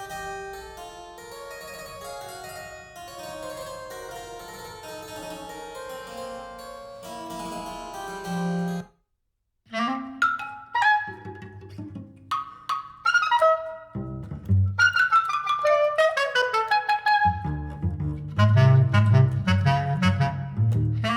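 Recorded music played through Elfton Vegas II four-way loudspeakers: a keyboard piece ends about nine seconds in, and after a moment of silence a new track starts with a clarinet-like wind melody over strong bass notes.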